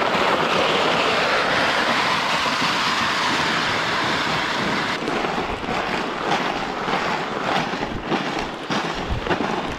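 Sled and toboggan runners scraping over an icy road, a steady gritty hiss. About halfway through it gives way to crunching footsteps on icy snow, a few a second.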